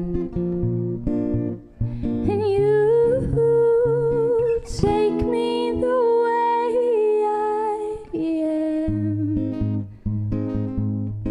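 Acoustic guitar strummed and picked while a woman's voice carries a wordless melody over it, the instrumental close of a slow acoustic song.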